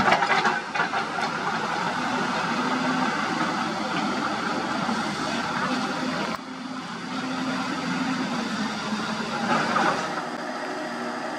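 Dump truck's diesel engine running steadily close by, with a few sharp knocks in about the first second. The sound drops abruptly about six seconds in.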